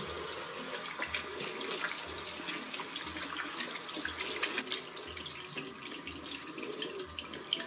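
Tap water running steadily into a bathroom sink and splashing over hands being washed under the stream.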